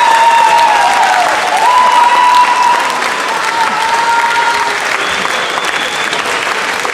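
Audience applauding, loudest in the first couple of seconds and easing slightly after, with a few high held tones over the clapping.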